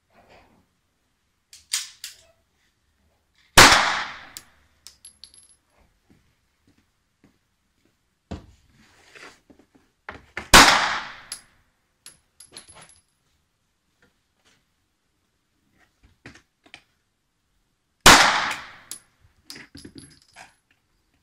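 Three single pistol shots from a Walther PPQ M2 Q4 TAC 9mm, fired slowly about seven seconds apart, each with a short echo. Small clicks and light clinks follow each shot.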